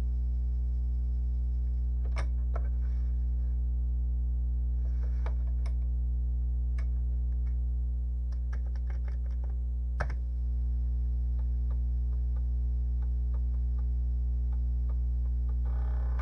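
Commodore 1541-II floppy disk drive clicking and knocking irregularly as its head seeks during a failing disk read, then ticking about twice a second, with a short rapid rattle near the end. A steady low hum runs underneath. The owner thinks the sound could mean the heads are out of alignment.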